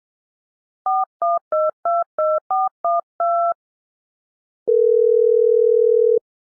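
Telephone touch-tone keypad: eight quick two-note beeps as a number is dialled. After about a second comes a steady low ringing tone lasting about a second and a half, the ringback of the call going through.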